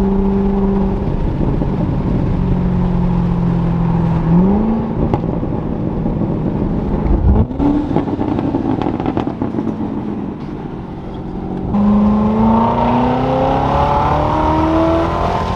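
Stock C7 Corvette ZR1's supercharged V8 under hard acceleration, heard from the open-roof cabin with wind noise. The engine note holds steady, then climbs in pitch about four and seven seconds in, and climbs again in a long pull over the last few seconds.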